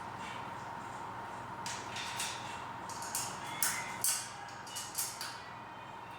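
Light clicks and scrapes from handling the day bed's frame parts and hardware while it is taken apart: about six short sharp sounds over some three and a half seconds, over a faint steady hum.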